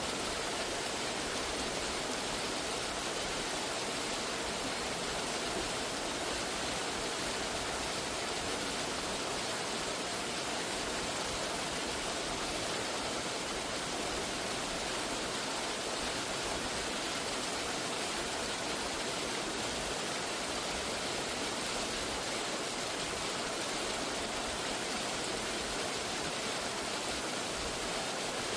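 A waterfall's steady, even rush of water, unchanging throughout.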